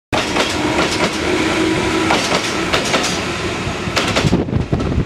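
Tobu Noda Line electric commuter train running past the platform, wheels clacking over the rail joints. The high rushing noise falls away about four and a half seconds in.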